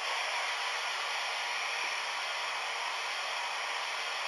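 Steady steam hiss from the Hornby TTS sound decoder in a stationary A4 model steam locomotive, played through the model's small onboard speaker. It switches on suddenly at the start and holds at an even level.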